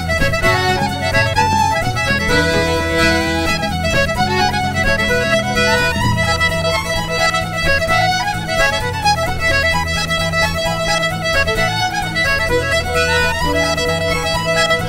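Irish traditional instrumental music: fiddle leading a tune with accordion underneath, playing steadily with many quick notes.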